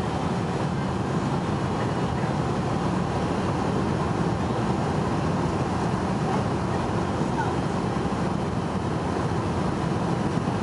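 Steady cabin noise inside a KLM McDonnell Douglas MD-11 trijet on approach with its flaps lowered: an even low rumble of engines and airflow with a hiss on top.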